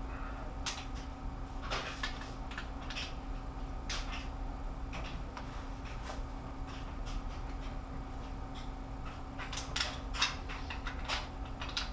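Scattered short metallic clicks, clinks and scrapes of a socket and long breaker bar being handled and fitted onto the cylinder head bolts of an engine, over a steady background hum.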